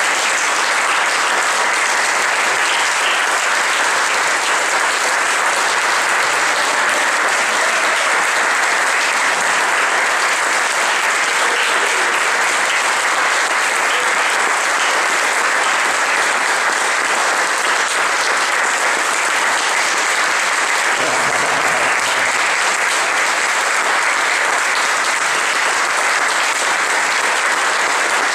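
Audience applauding steadily, the clapping sustained without a break.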